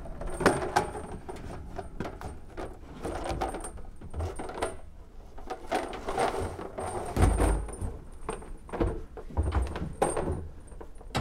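Irregular knocks and clatter of blue plastic water barrels being lifted and handled, with low thumps twice in the second half.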